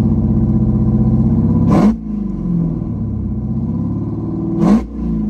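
Dodge Hellcat's supercharged 6.2-litre Hemi V8 being revved to purge a methanol-injection kit. It is held at high revs, drops back to idle about two seconds in, then gets a second short blip near the end.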